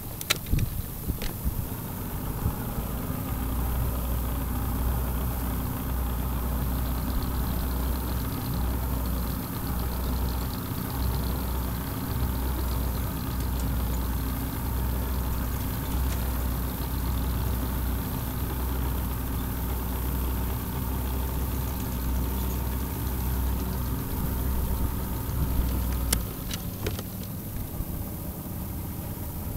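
An engine running steadily with a low hum that sets in about three seconds in and drops away near the end, with a few clicks near the start and near the end.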